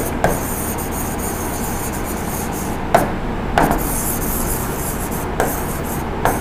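A pen writing on an interactive smart-board screen: rubbing strokes with a few light taps as the letters go down, over a steady hiss.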